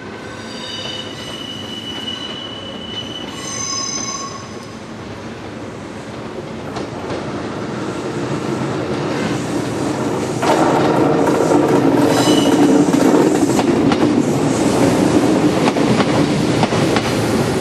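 Kintetsu 16000-series limited express train running into the station over the points, growing louder as it nears and passing close by from about ten seconds in, its wheels clattering over rail joints. High-pitched wheel squeal rings out in the first few seconds and briefly again about twelve seconds in.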